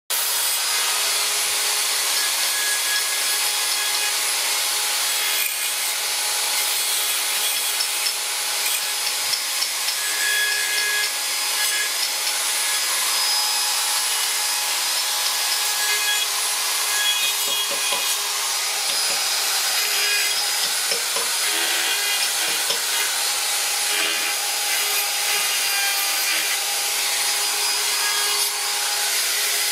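Handheld rotary carving tool running at speed, its bit grinding into the wood of a carved sculpture: a steady high whine over a continuous grinding hiss.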